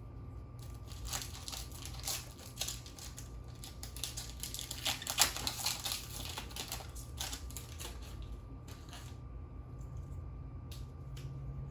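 Foil booster-pack wrapper of a trading card game being crinkled and torn open, with the cards handled: irregular rustling in bursts, loudest about five seconds in, thinning to a few faint clicks near the end.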